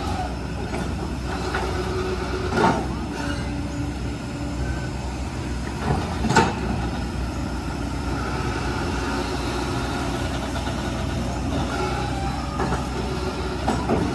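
Kobelco excavator's diesel engine running steadily, with a few sharp knocks, the loudest about halfway through.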